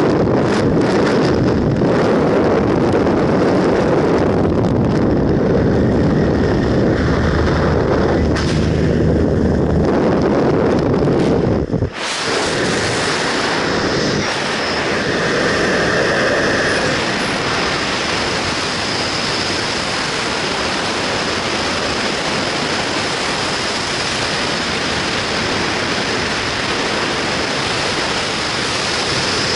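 Wind rushing over a camera microphone in freefall. For about twelve seconds it is a rough, low rumble, then after a sudden cut it becomes a steady, brighter hiss.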